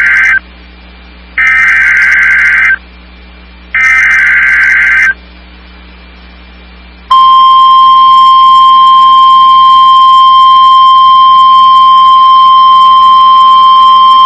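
NOAA Weather Radio required weekly test tones. Three loud bursts of SAME digital header data, each just over a second long with about a second between them, are followed about seven seconds in by the steady 1050 Hz warning alarm tone, which starts abruptly and holds.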